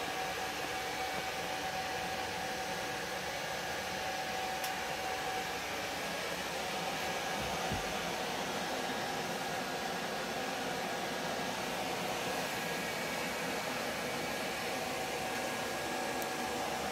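Steady rushing noise with a few faint, steady tones running through it.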